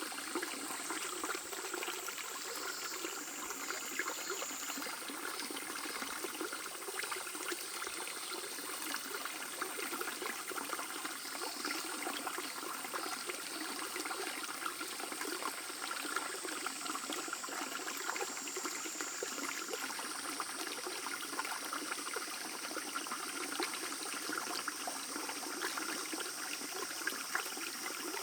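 A stream babbling steadily, a continuous rush of water with fine, fast trickling detail.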